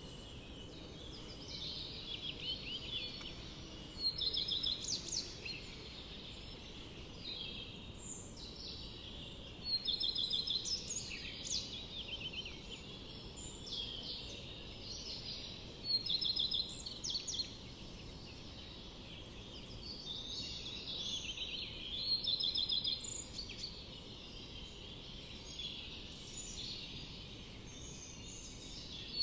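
Several songbirds singing in a forest: short, high, trilled phrases repeated every second or two, overlapping one another, over a faint steady background hiss.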